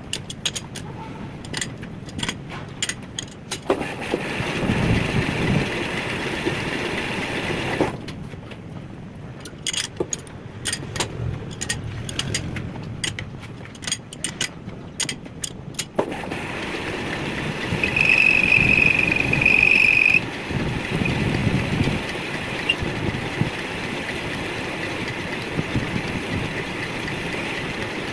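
A metalworking machine running in two long stretches, with a loud, high squeal for about two seconds in the second stretch. Between these stretches come quick runs of sharp metallic clicks.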